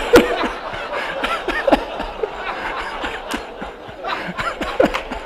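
Audience laughing at the punchline of a joke: many people chuckling and laughing at once, with scattered short voices rising and falling.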